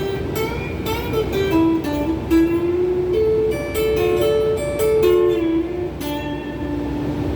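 Donner Q1 HSS strat-style electric guitar played through a phaser pedal and a Klon-clone overdrive into a Crate GX30M amp: a single-note melody, one note at a time, some held and a few sliding in pitch.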